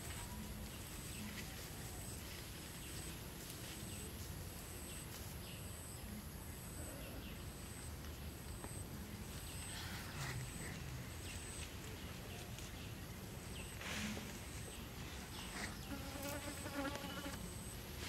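Insects chirping: a high chirp repeating steadily a little under twice a second over a constant high whine and a soft outdoor hiss. A few soft rustles come in the second half, and a brief pitched call sounds near the end.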